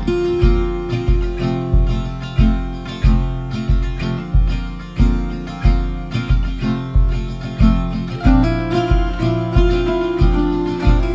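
Background music: acoustic guitar over a steady low beat, about three beats every two seconds.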